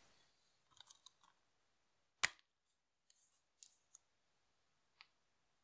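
Plastic Blu-ray case being handled and snapped open: a few light clicks, one sharp snap a little over two seconds in, then more small plastic clicks and a last tick near the end.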